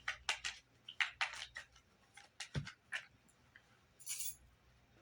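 Tarot cards being handled and drawn: a string of short, crisp clicks and flicks, with a soft thump about two and a half seconds in and a brief rustle about four seconds in.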